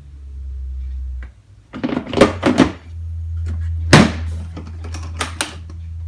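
Tools and parts being handled in a tool box: a cluster of clacks about two seconds in, a sharp knock about four seconds in, then a few lighter clicks. A steady low hum runs underneath and drops out briefly just after a second in.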